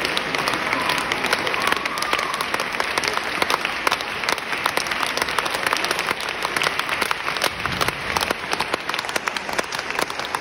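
A large audience applauding steadily, with sharp claps from hands close by standing out.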